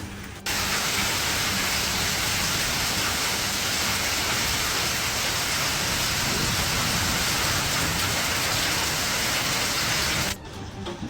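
Heavy storm rain pouring down in a dense, steady hiss, cutting in suddenly about half a second in and cutting out suddenly near the end.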